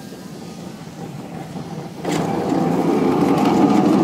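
City street traffic noise, then about halfway through a tram comes up loudly and passes, its wheels rumbling on the rails with occasional sharp clicks and clatters.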